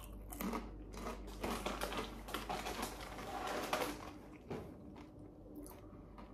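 Crunchy chewing of rolled corn tortilla chips (Takis), a close rapid crackle for the first four seconds or so, then easing to a few soft clicks.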